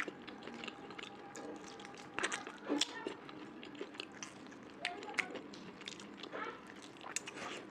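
Close-miked eating: a person chewing and biting a mouthful of curry, rice and fried pork, with frequent wet mouth clicks and smacks. A few louder bites come about two to three seconds in and again near the end.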